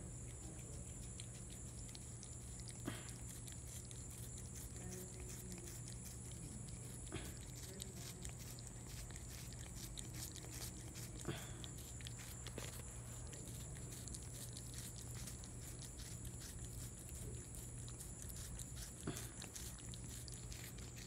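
Cat licking and chewing a watermelon slice: faint, irregular wet smacks and clicks, a few a little louder than the rest, over a steady low hum.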